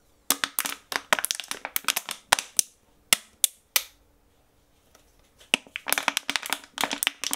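Plastic water bottle squeezed and crinkled, a dense string of sharp crackles, recorded through a microphone set to its stereo pattern. The crinkling is first on the right side, then stops for about a second and a half and starts again on the left.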